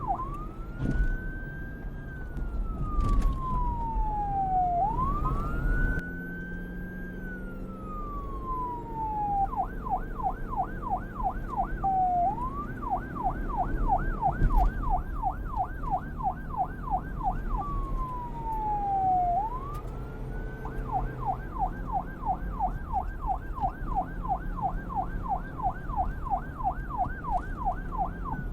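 Electronic police car siren switching between a slow wail that rises and falls over a few seconds and a fast yelp of about four sweeps a second, changing modes several times. A low rumble runs underneath.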